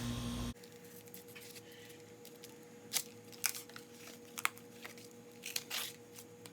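A steady hum cuts off abruptly about half a second in. Then a sheet of cardboard is cut, with a few short, crisp snips and crunches spread over the following seconds.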